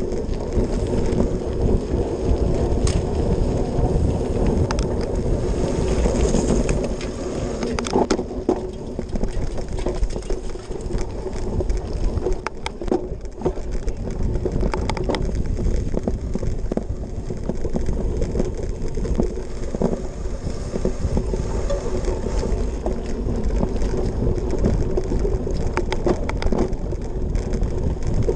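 Cyclocross bike ridden at race speed: wind rushing over the microphone and knobby tyres running, first with a steadier hum on pavement, then a rougher rumble over bumpy grass from about a third of the way in. The chain and frame rattle and knock over the bumps.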